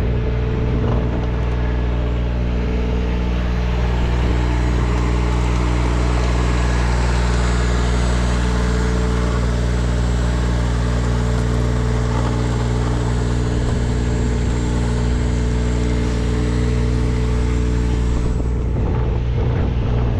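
An engine running at a steady speed, a deep, even drone that holds the same pitch throughout.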